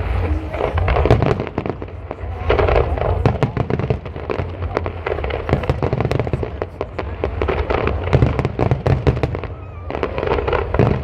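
Aerial fireworks display: a dense barrage of shell bursts and crackling, many sharp bangs in quick succession over a low rumble, easing briefly a little before the end and then picking up again.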